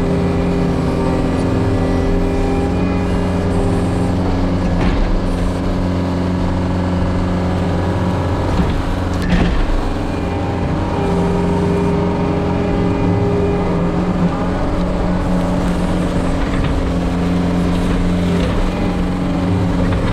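John Deere 333G compact track loader's diesel engine running steadily under working load. About nine seconds in the engine note drops briefly, then picks back up. There are a couple of sharp knocks, one around five seconds in and one near nine.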